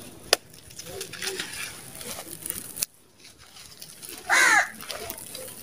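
Dry red sand-cement clumps crunching and crumbling in the hands, with a sharp crack about a third of a second in. A little over four seconds in, a short loud bird call, the loudest sound here, cuts across the crumbling.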